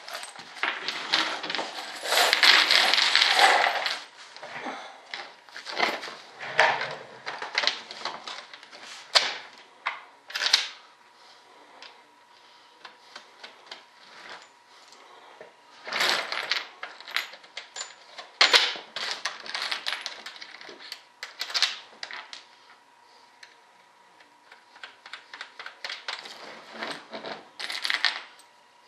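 Small metal hardware clinking and rattling as a hand rummages through a loose pile of bolts and parts to pick out bolts. Irregular clusters of clicks with quiet gaps between them, the busiest and loudest a couple of seconds in.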